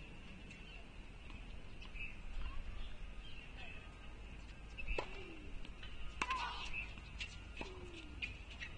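Faint outdoor ambience of birds chirping, with a few sharp knocks in the second half.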